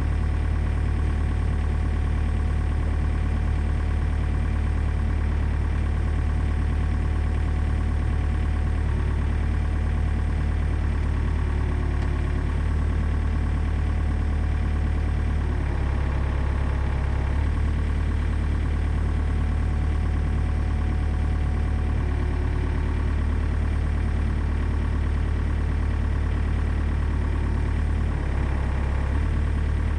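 Komatsu PC40 mini excavator's diesel engine running steadily, the tone shifting slightly a little past halfway and again near the end as the machine works.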